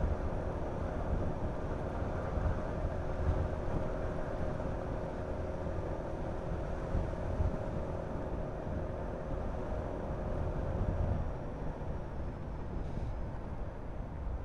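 Honda Forza 350 scooter's single-cylinder engine humming steadily at road speed under heavy wind rush and buffeting on the microphone. The engine's steady tone drops away about eleven seconds in, leaving mostly the wind.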